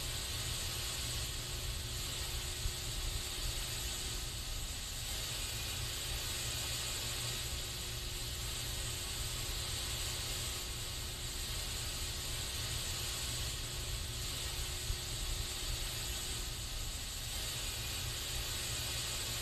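Aerosol spray can hissing continuously, with the hiss easing a little and swelling back every few seconds.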